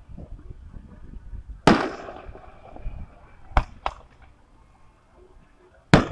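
Aerial fireworks bursting: four sharp bangs. The loudest comes a little under two seconds in and trails off in a long echo, two more follow close together a little past halfway, and another loud one lands near the end.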